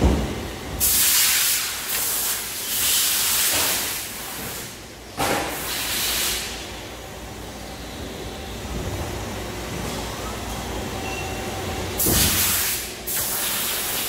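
Compressed air hissing in several one-to-two-second bursts among running CNC lathes, over their steady hum. The bursts come about a second in, around five seconds in and near the end, and a sharp clunk sounds at the very start.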